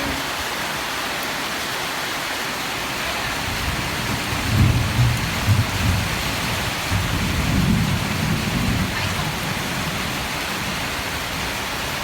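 Heavy rain pouring steadily, with a low rumble of thunder rolling through for several seconds from about four seconds in.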